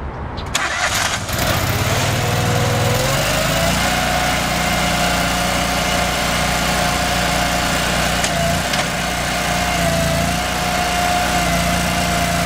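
Toro Dingo TX-420 mini skid steer's engine running steadily, with a whine that rises in pitch a few seconds in and then holds.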